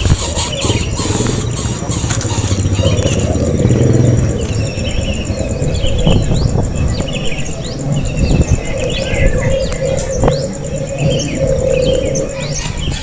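Small birds giving many short, sharp chirps in quick succession, over a steady low rumble.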